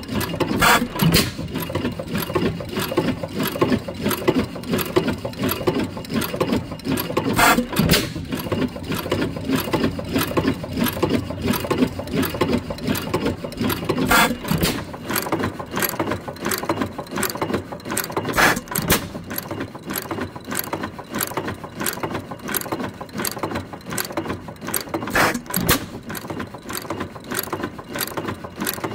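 Antique hit-and-miss engine running unloaded on a stronger governor spring. It fires only every few seconds, now and then twice in quick succession, and coasts between firings with a steady rapid clicking of its valve gear.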